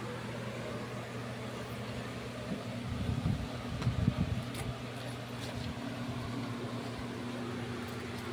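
A plastic card is slid and pried along the edge of a Samsung curved TV's LCD panel, making rubbing and handling noises that are loudest about three to four and a half seconds in. A steady low hum runs underneath.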